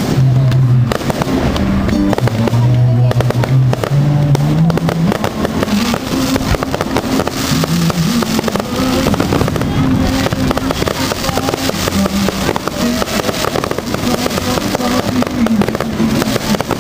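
Aerial firework shells bursting and crackling in quick succession, thickening into a dense crackle about five seconds in, with music carrying a moving bass line playing alongside.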